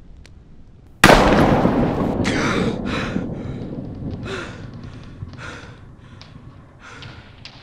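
A sudden, very loud bang about a second in, its rumbling tail dying away over several seconds, with several shorter hissing bursts on top as it fades.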